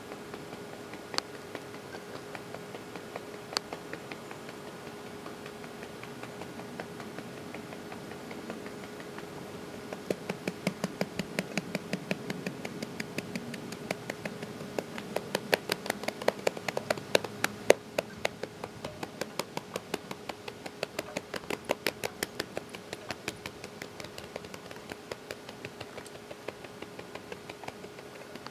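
A fast run of sharp clicks or taps, several a second, starting about ten seconds in and loudest a little later, over a faint steady hum.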